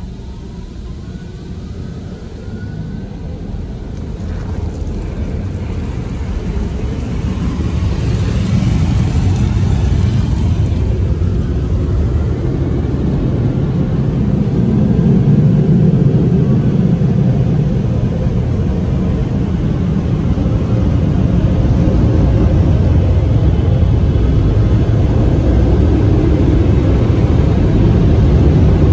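Car wash tunnel air dryers blowing over the car, a loud steady rush heard from inside the cabin that builds over the first several seconds and then holds.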